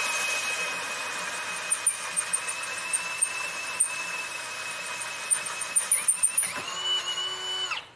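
Power drill boring into the cast water pump housing of a Mazda rotary engine, drilling the hole for a coolant temperature sensor. The motor gives a steady high whine that dips about six seconds in, then runs slightly higher before stopping just before the end.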